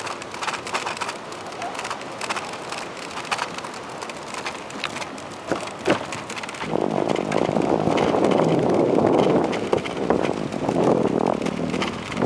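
Bicycle rolling over wooden boardwalk planks, with irregular rattling clicks as the wheels cross the plank joints. About halfway through, a louder steady rushing noise comes in and dominates the rest.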